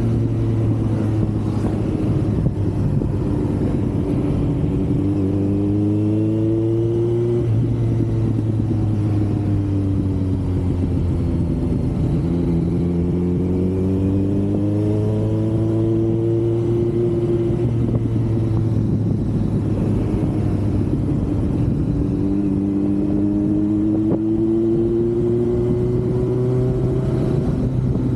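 Kawasaki Z900's inline-four engine under way, the revs climbing, dropping sharply at gear changes, and rising again, with wind rushing over the microphone.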